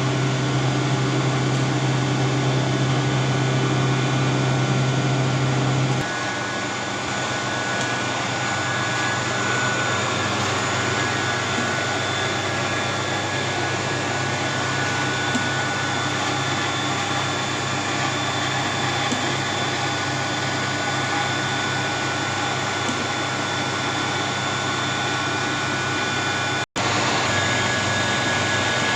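Steady hum of a running electric motor, with a strong low buzz that drops away about six seconds in, leaving a steady whirring noise. It cuts out for an instant near the end.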